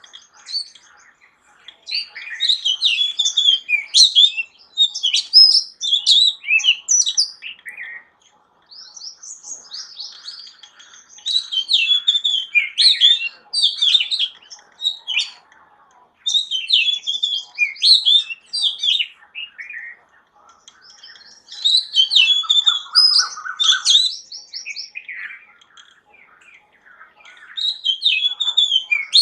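Birds singing: bursts of rapid, high-pitched chirps and warbling trills, each a few seconds long, with short pauses between them. A lower, buzzy trill sounds a little over three-quarters of the way through.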